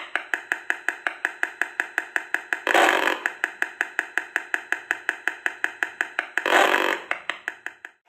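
Audio output of a handheld RF analyser picking up an Apple TV's wireless emissions: a rapid, even train of clicks, broken twice by a half-second burst of buzzing static.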